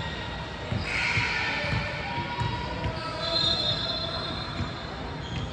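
A basketball bouncing on a gym floor in repeated thuds, with sneakers squeaking on the court. The longest squeak comes about three seconds in.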